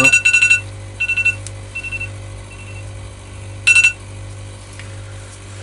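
Electronic alarm beeping: clusters of rapid high-pitched beeps, loud at the start and about a second in, fainter twice after, then one more loud cluster near the end, over a steady low hum.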